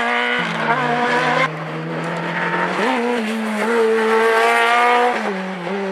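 Hill-climb race car engine running hard under load, its pitch stepping down sharply about half a second in and again a little after five seconds, with a rise in between.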